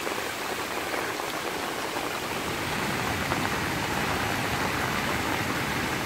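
Steady rain falling, with shallow water running over the rock slabs at the top of a waterfall.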